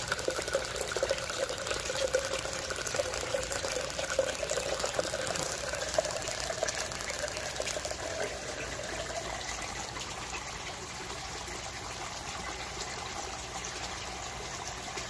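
Water pouring steadily down into a 1.5-inch U-siphon standpipe in an aquaponics flood-and-drain grow bed while the siphon is running, a continuous rush that grows a little quieter in the second half.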